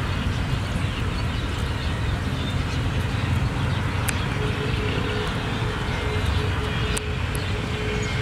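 Steady low rumble of outdoor background noise, with a faint broken hum setting in about halfway through and a couple of light clicks.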